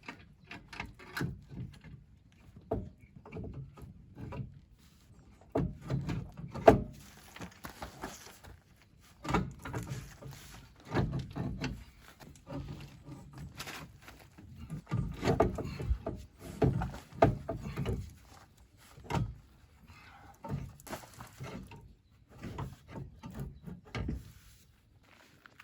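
Irregular knocks, clunks and rattles of hand tools and metal parts being handled, one loud knock about seven seconds in, during work on replacing a VW bus's exhaust pipe.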